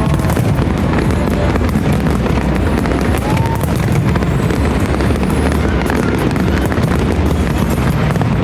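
A fireworks barrage with continuous booms and dense crackling, a short whistle about three seconds in, mixed with loud accompanying music.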